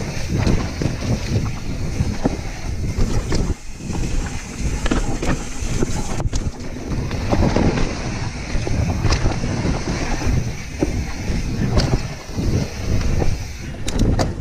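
Mountain bike riding fast down a dirt trail: wind rushing over the microphone and tyres rumbling over the ground, with frequent knocks and rattles from the bike over bumps.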